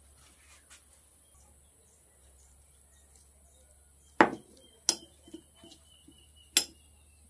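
A metal spoon clinking against a glass bowl while mixing sliced kamias with shrimp paste. About four seconds in come three sharp clinks, the first the loudest, with lighter taps between them.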